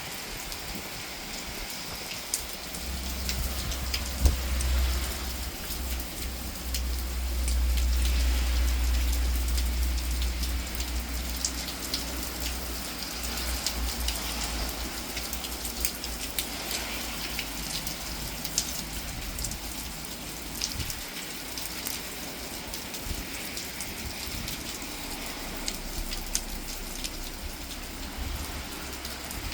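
Steady rain falling, with scattered drops ticking sharply on nearby surfaces. A low rumble swells in a few seconds in, is loudest around the middle and fades away.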